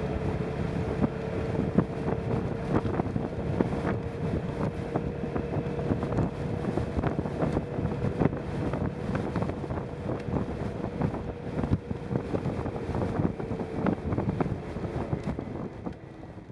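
Strong, gusty wind buffeting the microphone of a moving motorcycle, with the motorcycle's engine running steadily underneath. It fades out near the end.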